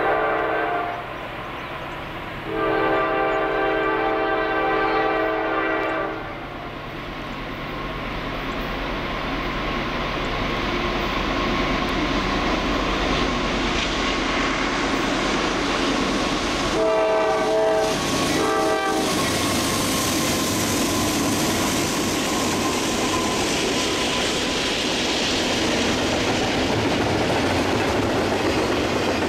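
Norfolk Southern C44-9W diesel locomotives blowing their multi-tone horn for a grade crossing while passing slowly: a blast ending about a second in, a long blast of about three seconds, then two short blasts a little past the middle. Under and after the horn, the locomotives and then the double-stack intermodal cars roll by with a steady rumble and wheel-on-rail clatter.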